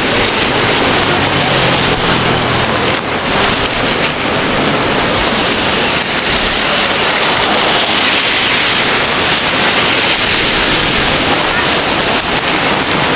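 Steady hiss of rain falling on a city street, with voices of people nearby.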